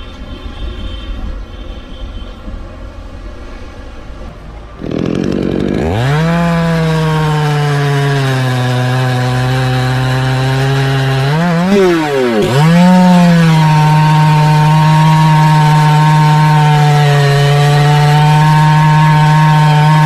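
After a quieter start, a two-stroke petrol chainsaw revs up sharply about five seconds in and runs at full throttle, cutting through a coconut palm trunk. Its pitch sags and recovers once midway, then holds steady.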